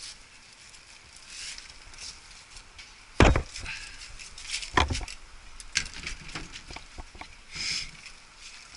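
Two loud knocks about a second and a half apart, with lighter clicks and a few brief swishes between them.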